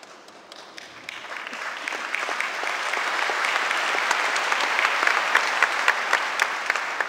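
Large audience applauding, swelling over the first couple of seconds into steady clapping, with a few nearby claps standing out sharply.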